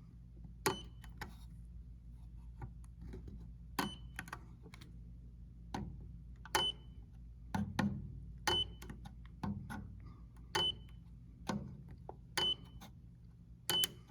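Mini arc welder firing again and again as it welds nickel strip onto cracked metal: sharp snaps about every one to two seconds, each with a short high beep, over a steady low hum.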